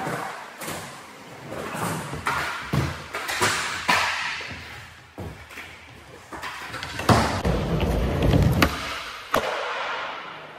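Skateboards rolling on a concrete floor, with repeated sharp clacks and slams of boards hitting the ground, echoing in a large indoor hall. The rolling gets loudest and heaviest about two-thirds of the way in, with a cluster of hard impacts near the end.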